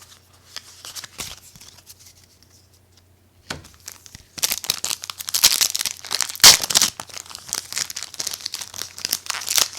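Yu-Gi-Oh booster pack's foil wrapper being torn open and crinkled by hand. After a few quiet seconds it starts about four seconds in and keeps on as a dense crackling, with the sharpest tear about six and a half seconds in.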